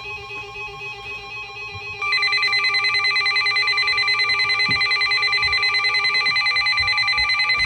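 A weather radio's alert alarm sounds: faint steady tones, then about two seconds in a loud, rapidly pulsing electronic tone that rings like a phone. It signals an incoming warning broadcast, here a Special Marine Warning.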